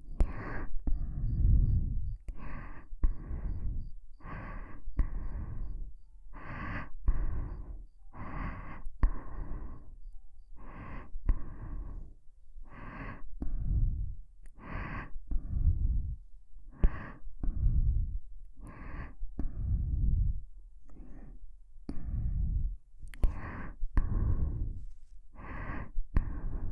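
Slow, even breathing close into the ears of a Neumann KU100 dummy head microphone, about one breath every two seconds. Each breath comes in two parts, a shorter, brighter one followed by a longer, deeper one, with air puffing on the microphone.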